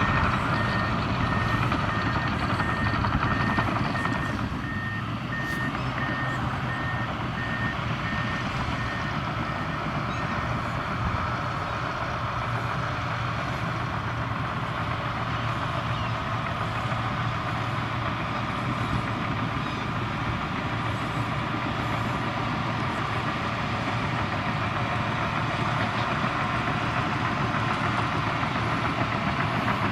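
Komatsu crawler bulldozer's diesel engine running steadily while it works. Its reversing alarm beeps in an even pulse through roughly the first ten seconds.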